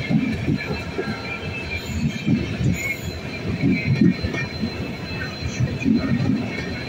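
Passenger train of LHB coaches running past close by on the next track: wheels knock over rail joints in irregular beats under a steady rumble, with a thin, steady high wheel squeal above.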